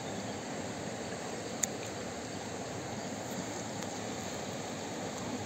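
Steady rush of a flowing river's current, with one brief sharp click about one and a half seconds in.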